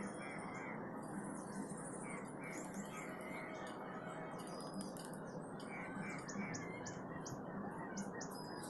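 Small birds chirping in quick, repeated short calls over a steady low background noise.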